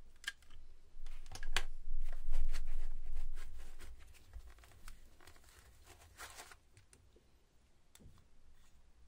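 Handling noises of unpacking a hard tool case: a plastic charger set down, then hands pulling parts out of a foam insert, with irregular clicks, knocks and rustling. Loudest in the first half, tapering to a few faint clicks.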